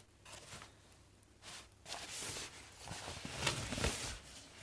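Rustling and soft knocks from a Czechoslovakian gas mask haversack being handled, in several short spells.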